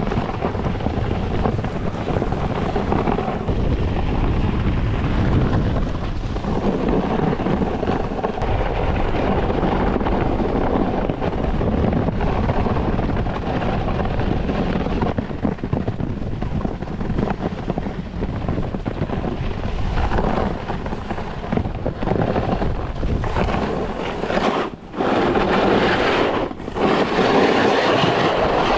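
Wind rushing over the microphone while skiing downhill: a loud, steady rush that drops out briefly twice near the end.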